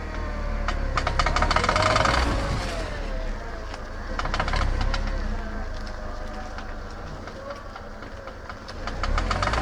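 A VW Golf's worn CV joint clicking in rapid runs, like a machine gun, while the car turns sharply, with the engine running underneath. The clicking in the turn is the sign of a failing CV joint, the kind of wear that follows a torn CV boot. The loudest run of clicks starts about a second in and lasts about two seconds, and shorter runs follow midway and near the end.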